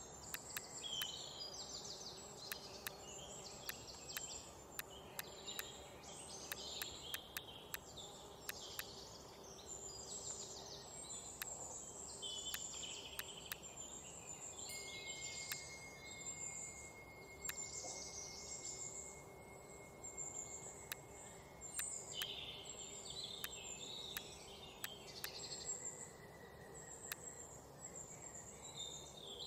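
Birds and insects chirping, with many sharp clicks scattered through. A thin, steady high tone holds for about ten seconds in the middle.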